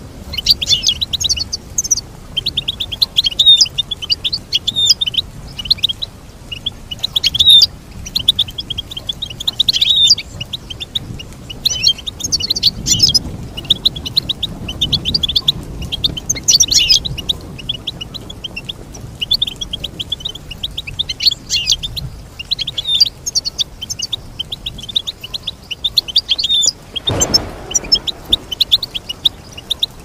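European goldfinch singing a long, fast, twittering song of quick trills and chirps that goes on almost without a break. There is one dull knock near the end.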